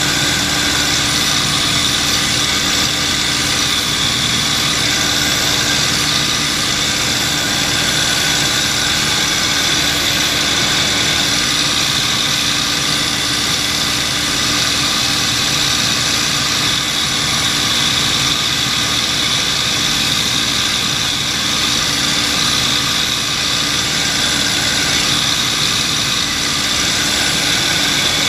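P-51 Mustang's V-12 piston engine and propeller running steadily in cruise flight, heard from inside the cockpit with the rush of air over the canopy. The drone stays even throughout.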